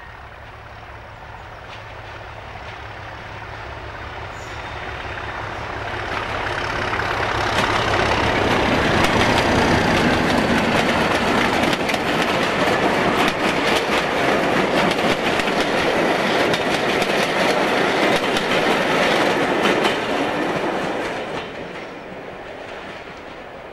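Class 37 diesel locomotive, with its English Electric V12 engine, approaching and passing close while hauling passenger coaches. The sound builds steadily, then the coaches' wheels clatter over the rail joints for some seconds before it drops away suddenly as the last coach passes, near the end.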